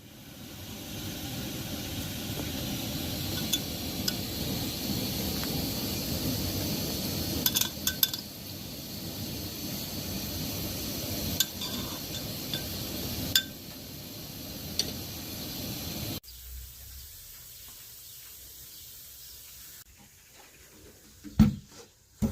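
Kitchen cooking sounds: metal utensils and dishes clinking now and then over a steady background noise. The background cuts off suddenly about two-thirds of the way through, and a couple of sharp knocks follow near the end.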